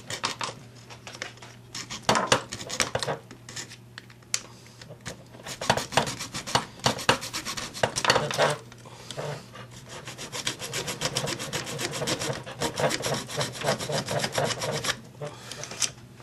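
A bare hacksaw blade, worked by hand, sawing and scraping at the plastic inside a hedge trimmer's handle housing, cutting away plastic that has fused where the plug prong sits. Short, rapid back-and-forth strokes come in several spells with brief pauses, then stop about a second before the end.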